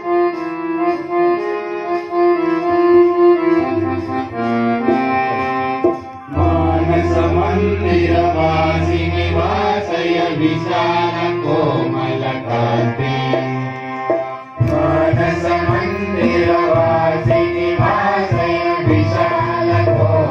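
Devotional bhajan: a harmonium plays a melodic opening, then about six seconds in the tabla and a group of voices join in. The music breaks off briefly about two-thirds of the way through and starts up again.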